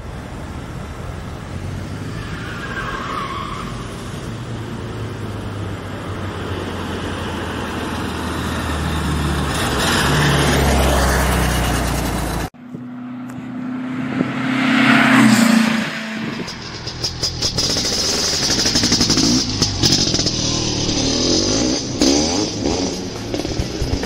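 A motor vehicle's engine running, growing steadily louder over the first ten seconds or so. It cuts off suddenly about halfway through, and a second vehicle passage follows, swelling loudly and fading away around fifteen seconds in.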